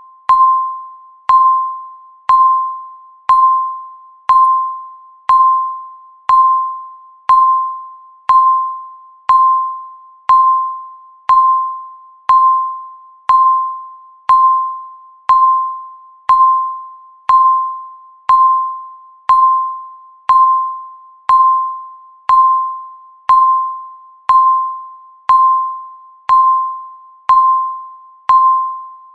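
Countdown timer beeping: one electronic tone each second, each starting sharply and fading away before the next.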